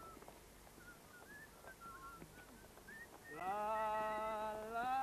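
A young person's voice holding one long note at a steady pitch, starting about three seconds in. Before it, only faint, scattered voices.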